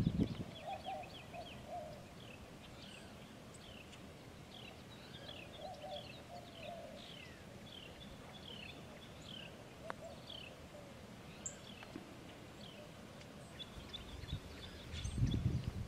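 Faint outdoor birdsong: many short, falling chirps repeated throughout, with a lower pulsed call near the start and again about six seconds in. There is a single faint click about ten seconds in and a brief low rumble near the end.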